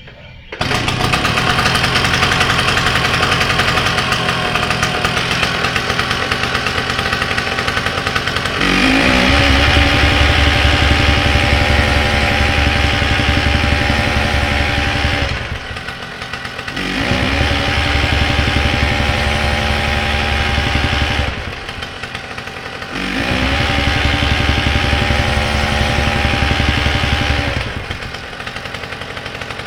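Wacker Neuson BS 60-2i jumping-jack rammer's two-stroke engine running. Three times it is throttled up into rapid, even pounding of the rammer foot, dropping back to a lower run between bursts.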